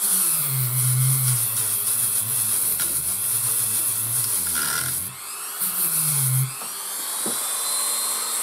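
Dremel rotary tool running at high speed, roughing up the surface of a plastic radio cabinet so glue will key to it. Its high whine dips briefly about five seconds in, then picks up again.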